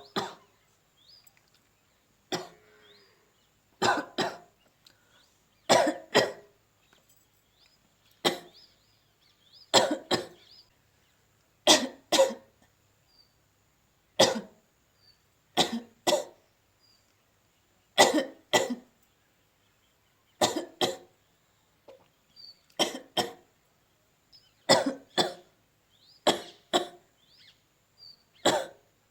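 A woman coughing on purpose, staged rather than from illness: short, harsh coughs, mostly in twos, coming about every two seconds.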